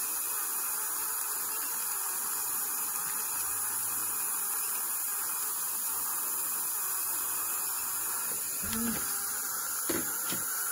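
Steady hiss of dental suction drawing air through a Nola dry-field system in the patient's mouth, with a few soft knocks near the end.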